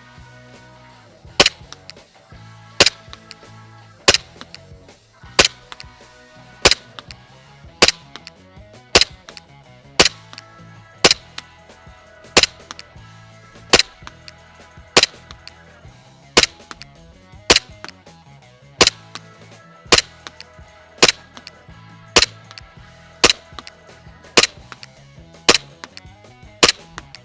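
Umarex Glock 17 Gen 4 gas blowback airsoft pistol fired on green gas in slow, steady single shots, about one every 1.2 seconds, each shot followed by a fainter click.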